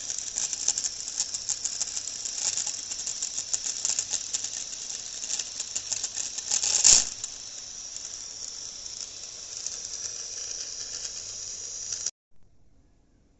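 Small homemade electric motor spinning a CPU cooling fan, running with a fast rattling clatter. There is one loud click about seven seconds in, after which it runs with a steadier whir until the sound cuts off abruptly near the end.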